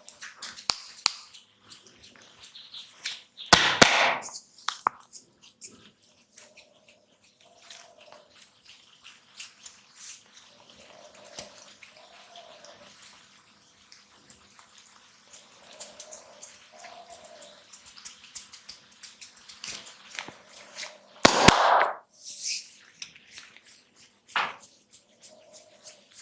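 Close-miked ASMR sounds of a barber's hands and tools working on a client's head: a run of small clicks and wet crackles, with two louder noisy bursts, each under a second, about four seconds in and near the end.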